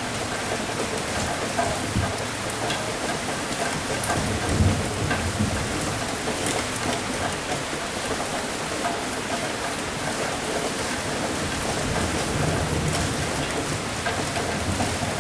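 Steady heavy rain with scattered drop patter, and low rumbles of thunder swelling about four seconds in and again near the end.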